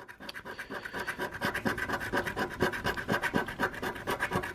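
Scratch-off lottery ticket being scraped: quick repeated rubbing strokes, about five a second, wearing off the coating over the play area.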